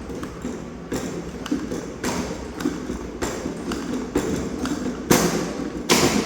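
Spring-charging handle of an L&T CN-CS 800H air circuit breaker being pumped by hand, its mechanism clicking and knocking about once a second as the closing spring is charged, with two louder clunks near the end.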